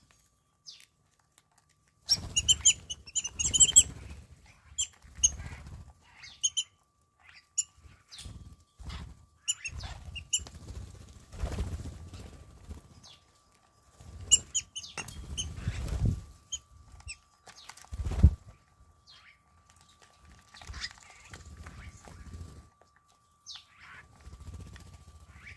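A flock of wattled starlings chirping and squeaking in short, high, busy bursts, starting about two seconds in. Their calls mix with the fluttering and flapping of wings as birds land at and leave a feeding dish.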